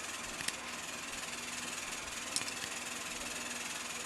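Faint small clicks of metal lock parts being handled while the pins are taken out of a pin-tumbler lock, two or three of them, over a steady background hum and hiss.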